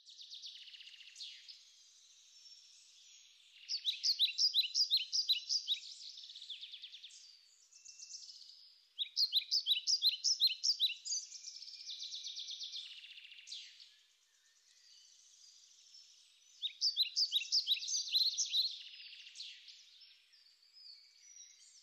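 Songbird singing: three bouts of rapid, evenly repeated chirping notes, each about two seconds long, with fainter scattered chirps between them.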